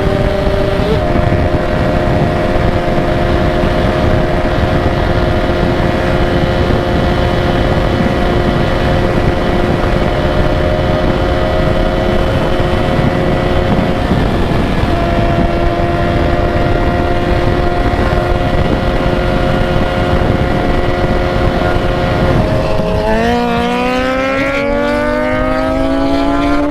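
Yamaha XJ6's inline-four engine running at a steady cruising pitch while riding, easing briefly about halfway, then dropping about four seconds before the end and climbing steadily in pitch as the bike accelerates. A steady rushing noise runs underneath.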